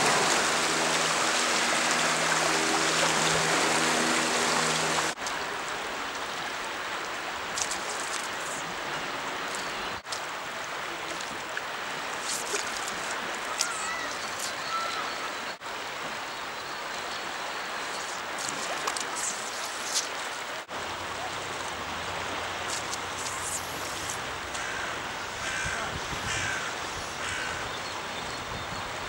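Steady rush of a fast-flowing river, loudest in the first five seconds. Short clicks and a few bird chirps come through in the later stretches.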